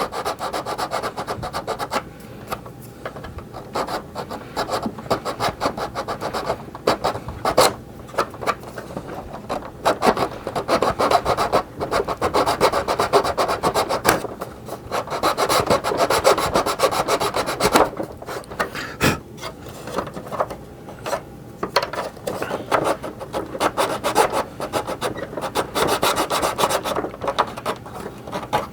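A hand file rasping back and forth on plastic, smoothing a broken hinge area flat. It goes in quick repeated strokes, in long runs with a few short pauses.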